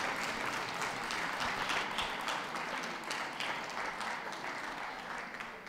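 Ringside audience applauding steadily, dying away near the end.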